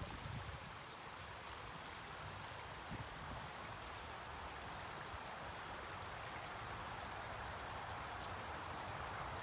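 Water running steadily in a backyard garden pond, a continuous even rush.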